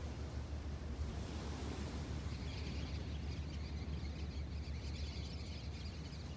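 A flock of small birds calling with many short, high chirps as it flies low past, starting about two seconds in and fading near the end. Underneath is a steady low rumble of wind and small waves breaking on the beach.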